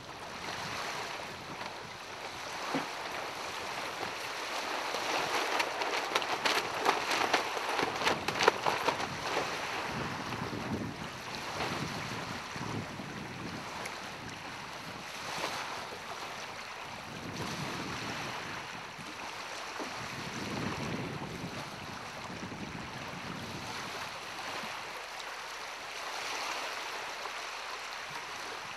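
Wind buffeting the microphone and small waves lapping at the shore. A louder gusty spell with a run of rapid clicks comes about six to nine seconds in.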